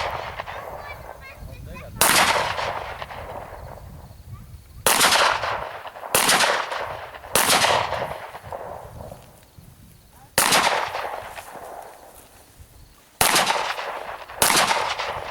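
Seven single gunshots fired at an irregular pace, one to three seconds apart, each trailing off in a fading echo.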